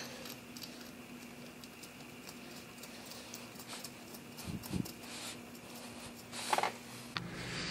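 Faint, scattered light ticks of a thread tap being turned by hand into a head bolt hole in a Toyota 2AZ-FE engine block, over a steady low hum, with a brief louder rustle near the end.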